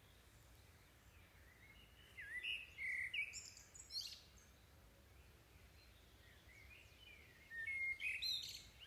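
Faint birds chirping and tweeting in two short bouts, one about two seconds in and another near the end.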